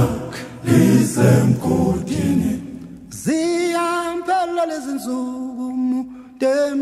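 Unaccompanied choir singing a Zulu gospel song in close harmony. About three seconds in, the voices settle into one long held note, which steps down to a lower note a couple of seconds later.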